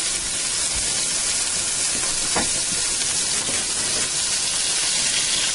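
A stick of margarine melting in a hot stainless steel frying pan with the heat turned down, making a steady sizzle, with one light click about halfway through.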